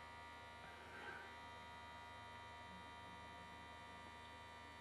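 Faint steady buzz of a children's electric toothbrush's vibrating motor running, shaking the foil takeaway-tray boat it is mounted in.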